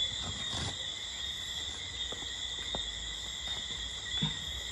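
Steady, high-pitched chorus of night insects, with a few faint clicks in the middle.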